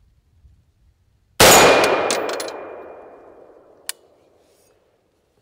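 A single AR-15 rifle shot, sharp and loud, echoing away over about two seconds: the check shot fired to test a freshly set scope zero. A short sharp click follows a couple of seconds later.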